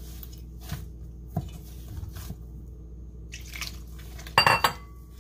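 Wet masa dough squelching as a hand squeezes and kneads it in a stainless steel bowl, in soft irregular squishes. About four and a half seconds in, a louder knock against the steel bowl leaves it ringing briefly.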